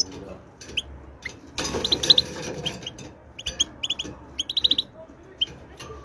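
European goldfinch twittering: quick runs of short, high chirping notes repeated throughout, with a couple of seconds of noise beneath them around the middle.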